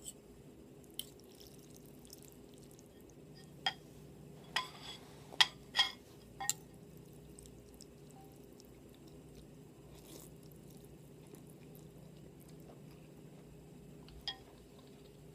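Scattered sharp clinks and clicks of tableware, most bunched together about four to six seconds in and one more near the end, over a low steady background hum.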